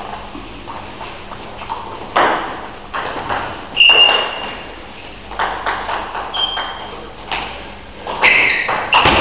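Table tennis ball clicking on bats and the table: scattered single knocks, two of them with a short high ping, as the ball is handled between points. Near the end, quicker clicks come as a serve and rally begin.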